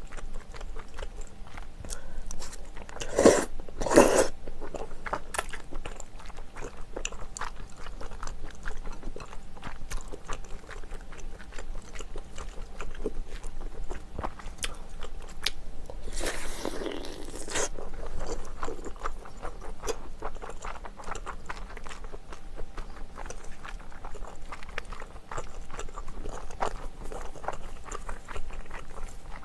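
Close-up eating sounds: wet chewing with many small mouth clicks, with two loud slurps of thick glass noodles about three and four seconds in. Later, a little past halfway, comes one longer noisy slurp.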